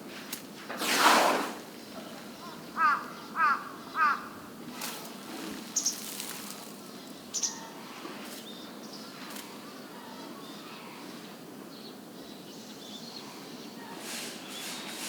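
A whooshing burst about a second in, about a second long, as an African elephant flings sand over itself in a sand bath. A crow caws three times in quick succession a few seconds later, and faint bird chirps and further sand sounds follow.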